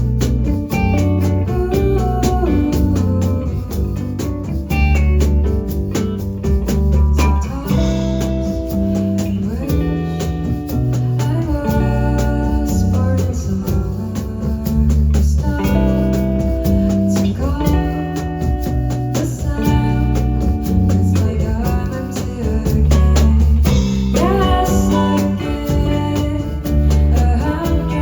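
A band playing live: acoustic guitar and bass, with a voice singing over them, in an acoustic arrangement of a song.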